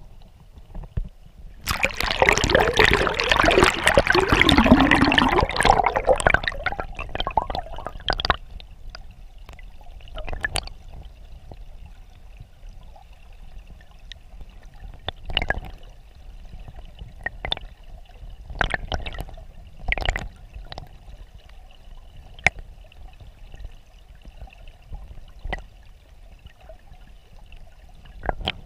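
Mountain stream water heard through an underwater camera housing: a loud rush of turbulent water for about four seconds near the start, then a quieter steady water noise with scattered sharp clicks.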